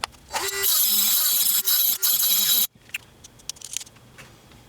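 Rotary tool with an abrasive disc grinding away the square bar inside an airsoft gearbox shell for about two seconds, then cutting off abruptly. A few light clicks of handling follow.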